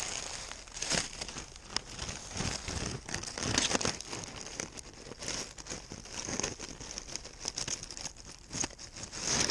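Irregular close rustling and crinkling as a cat moves about with a GoPro strapped to its body, the camera picking up the scuffs and brushes of its movement from very near.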